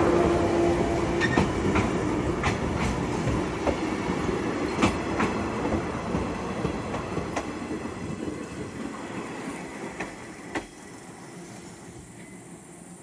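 JR West 105 series and 123 series electric train cars rolling past close by and pulling away, the rumble fading steadily. The wheels click over rail joints at irregular intervals, roughly one every second or so, growing fainter as the train recedes.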